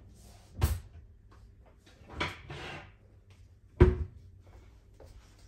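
Kitchen cabinet being opened and shut: three sharp knocks about a second and a half apart, the last the loudest, with a brief rustle after the middle one.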